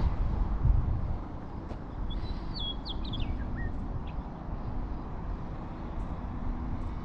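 Wind buffeting the microphone in a steady low rumble, gusting hardest in the first second. A bird sings a short run of high chirping notes about two seconds in.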